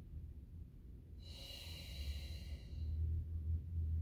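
A person's long audible breath, about a second and a half, over a low steady hum.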